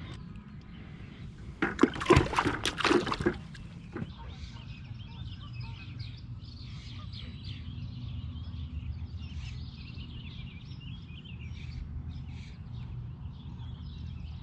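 A short cluster of loud knocks and splashes about two seconds in, then a steady low hum with birds chirping faintly.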